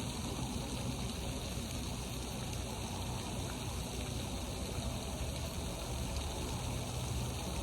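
Steady splashing rush of water from a pond fountain, a fountain noted as one that makes a lot of noise.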